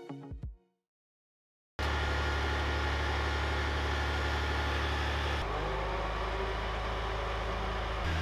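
Boom crane truck's engine running steadily with a deep, low hum, starting suddenly after a second of silence; the sound shifts abruptly about five and a half seconds in as the shot changes, and a faint gliding whine follows.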